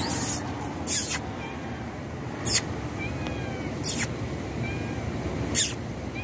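A white-and-ginger cat mewing faintly a few times, in short mews that rise and fall. Five sharp, short clicks about every second and a half are the loudest sounds, over a steady low background hum.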